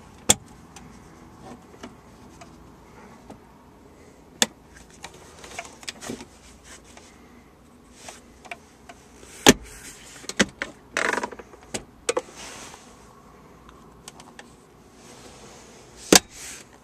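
Handling noises inside a car cabin: scattered sharp clicks and knocks against interior trim, with a rustling scrape about eleven seconds in. The loudest is a clack near the end.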